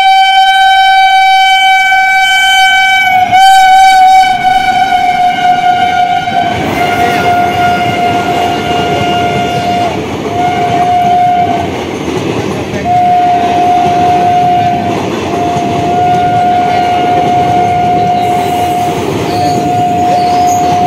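Indian Railways electric locomotive's horn sounding one long, loud blast that breaks briefly and drops slightly in pitch as the engine goes by. The horn then keeps sounding in several shorter blasts over the rumble and wheel clatter of a passenger train's coaches rushing past.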